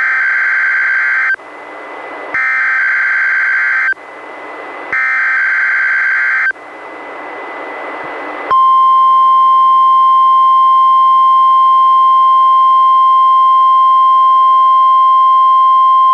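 NOAA Weather Radio Required Weekly Test: three bursts of the SAME digital alert header, each a harsh data buzz of about a second and a half with short gaps between. About eight seconds in the steady 1050 Hz warning alarm tone begins, the loudest sound, still going at the end.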